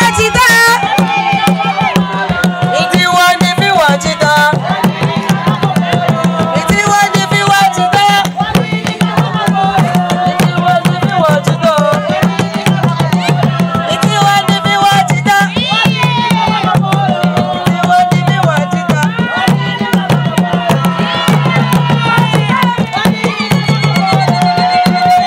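Traditional Zambian wooden hand drums played by several drummers in a fast, steady rhythm, with a woman singing over them through a microphone.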